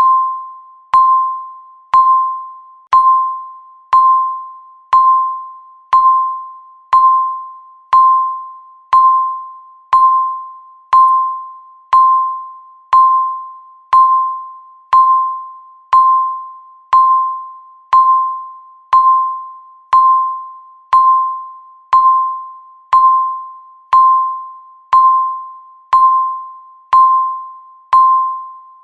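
Countdown timer beep: one short electronic tone struck once every second, each with a sharp start and a quick fade, marking the seconds left.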